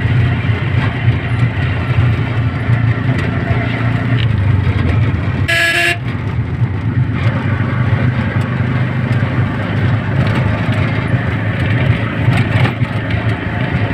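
CNG auto-rickshaw's small engine running steadily as it drives along, with its horn sounding once, briefly, about five and a half seconds in.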